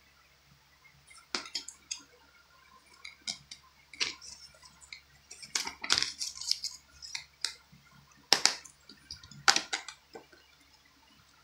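A plastic Blu-ray case and its paper inserts being handled: a scattered string of clicks, taps and paper rustles, with two louder clicks near the end as the case is shut and moved.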